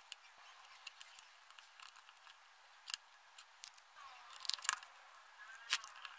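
Scattered light clicks and taps of plastic parts being handled and fitted into a small Bluetooth speaker's plastic case, with a sharper click near the end.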